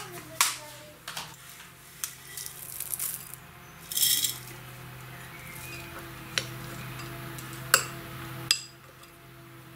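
Metal spoon clinking and tapping against ceramic bowls of rice pudding, with a brief rattle of chocolate chips being poured in about four seconds in, then the spoon knocking on the bowl as the pudding is stirred.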